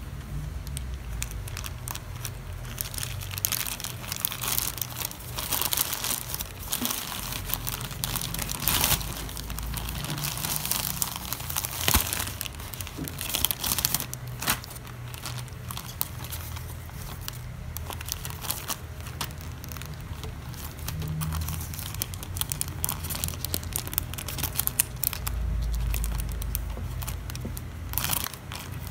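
Thin plastic courier mailer pouch crinkling and rustling as it is handled and torn open, with sharp crackles every few seconds. Near the end the plastic-wrapped mask packets rustle as they come out.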